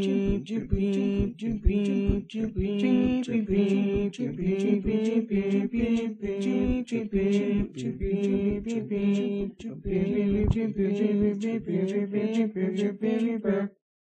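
A single voice singing a low, nearly level tune without words, with sharp clicks about three times a second; it cuts off suddenly near the end.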